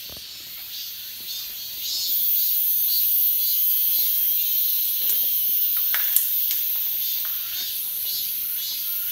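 Insects chirring steadily in the trees: a high hiss with a pulsing trill beneath it, growing louder about two seconds in. A few faint ticks, one sharper about six seconds in.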